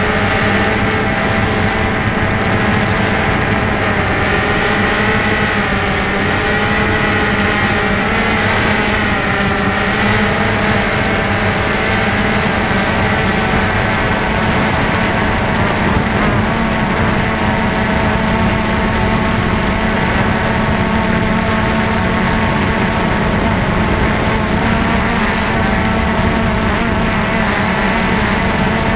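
DJI Phantom 2 quadcopter's electric motors and propellers whining steadily, the pitch wavering up and down with the throttle, heard close up from a camera mounted on the drone itself.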